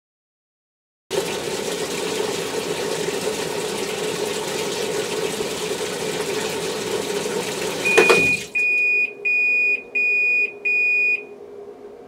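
Panasonic NA-F60B10 top-loading washing machine running with a steady rushing noise, then stopping with a knock about eight seconds in as its buzzer gives five short high beeps. The buzzer is the signal to add fabric softener by hand in the fragrance (香りしっかり) course.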